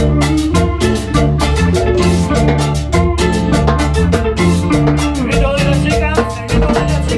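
Latin dance-band music in the cumbia style, with a steady percussion beat, a bass line and melodic lines over it.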